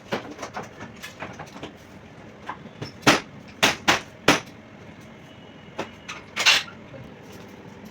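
A series of sharp knocks and clacks of hard objects being handled, the loudest bunched together around the middle with another near the end, over a steady low hum.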